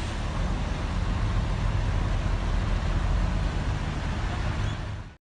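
Small engine of a heavily loaded auto-rickshaw running steadily, with a low hum under street noise; it fades out near the end.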